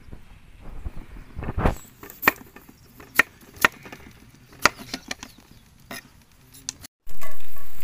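Kitchen knife chopping a potato on a wooden cutting board: several sharp knocks of the blade on the board. Near the end, after a short break, a loud sizzle of food frying in hot oil starts suddenly and slowly fades.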